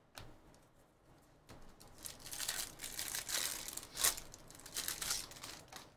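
Foil trading-card pack wrapper crinkling and tearing as it is ripped open by hand. It starts about a second and a half in, with a sharper tear near the middle.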